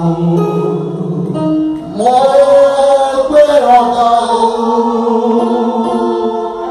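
Slow sung hymn, with voices holding long notes; about two seconds in the singing moves up to a higher pitch and holds there.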